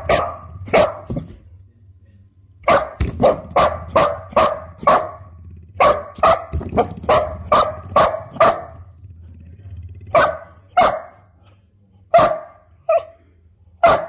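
A spring door stopper twanging with a ringing boing each time a dog flicks it, in quick runs of several flicks with pauses between.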